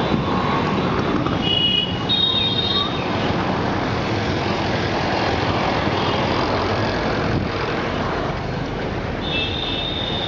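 Steady road traffic noise, with brief high-pitched tones about one and a half seconds in and again near the end.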